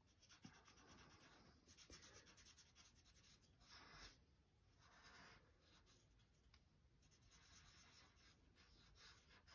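Faint strokes of a soft oil pastel stick rubbing across paper, several short passes with pauses between them.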